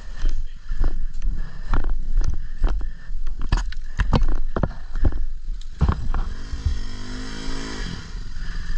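Repeated knocks and thumps over a low rumble, then, about six and a half seconds in, a motorcycle engine revving for a couple of seconds, its pitch rising and falling.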